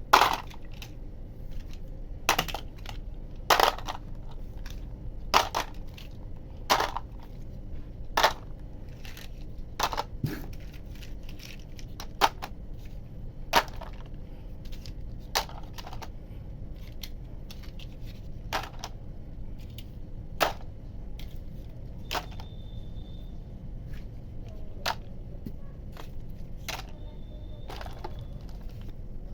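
Small toy cars knocking and clacking against each other and a toy dump truck as they are handled: a sharp knock every second or two, with quieter clicks between, over a steady low hum.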